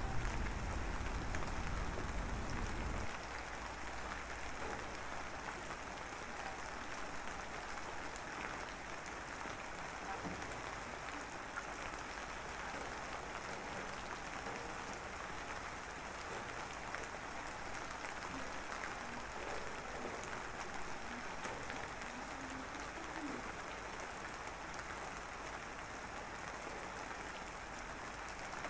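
A steady, even hiss of background noise with faint scattered specks, rain-like in character. A low rumble under it stops about three seconds in.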